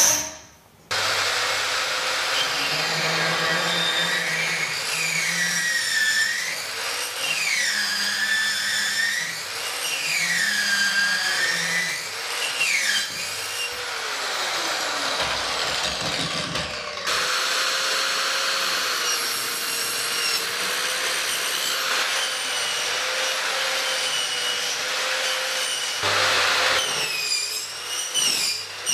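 Exact PipeCut 170 electric pipe saw, its 140 mm carbide-tipped blade running and cutting through metal pipe, steel and then copper, in several back-to-back cuts. The steady saw noise carries a ringing whine that swoops down and back up about every two seconds, then changes abruptly to a steadier hum about halfway through and again near the end.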